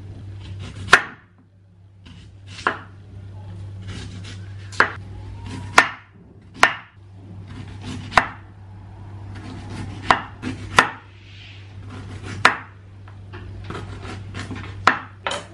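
Kitchen knife chopping on a cutting board: about a dozen separate strokes at uneven intervals, over a steady low hum.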